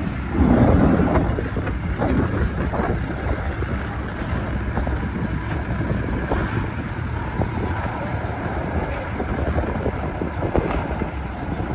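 Wind buffeting the microphone over a low, steady rumble, swelling louder for about a second near the start.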